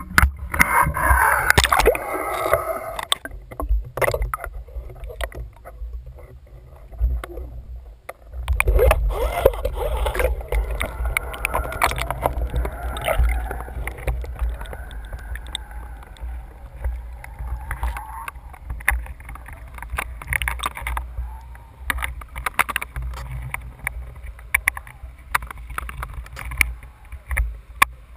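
Muffled water noise heard through a submerged camera housing as it is lowered into the sea: gurgling and water rushing past over a steady low rumble, loudest in the first few seconds and again about nine seconds in.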